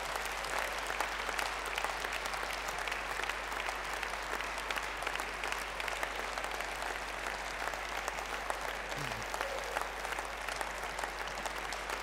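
Large audience applauding steadily, many hands clapping without pause.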